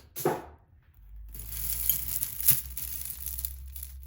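Crinkly rustling of packaging as costume jewelry is rummaged through by hand, with a couple of sharp clicks of pieces knocking together.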